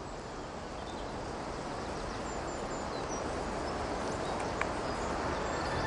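Outdoor night ambience: a steady hiss of noise that slowly grows louder, with a few faint high chirps.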